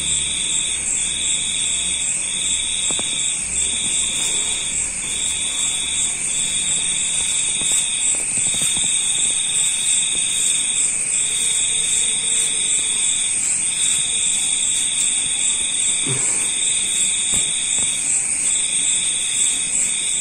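Insects chirring steadily: a high, fast trill with a lower tone that pulses on and off roughly once a second.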